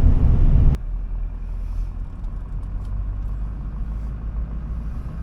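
Steady low rumble of a truck driving, its engine and road noise running, which drops suddenly in level under a second in and then carries on evenly.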